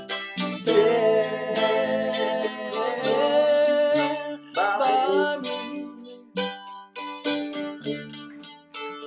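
Mandolin playing an instrumental break: a melody of quickly plucked notes, with low bass notes held underneath.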